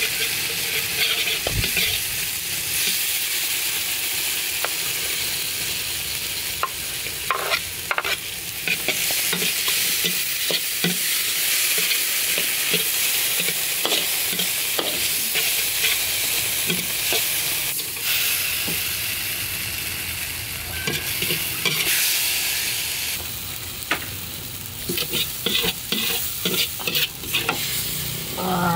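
Food sizzling and frying in a stainless steel wok while a metal ladle stirs and scrapes it, with a steady hiss and scattered sharp clacks of the ladle against the wok, more frequent near the end.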